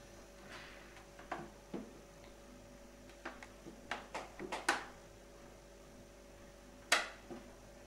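Small square counters set down one by one on a paper worksheet on a tabletop: a scattering of light taps and clicks, bunched together a few seconds in, the sharpest one about seven seconds in.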